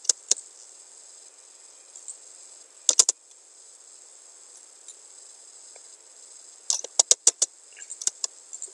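Computer mouse clicks and keyboard keystrokes during drafting work: a single click, a quick group of three about three seconds in, then a rapid run of several clicks about seven seconds in, over a steady faint high hiss.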